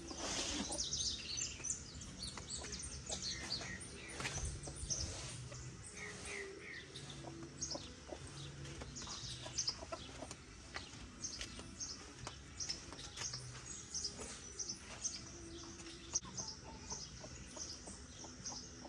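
Chickens clucking faintly, with short high chirps and calls scattered throughout and a few light clicks.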